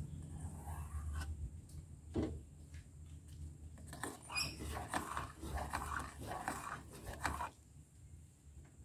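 Metal spoon stirring simmering coffee in a stainless steel saucepan, scraping and clinking against the pan in quick irregular strokes over a low steady rumble. The stirring stops about seven and a half seconds in.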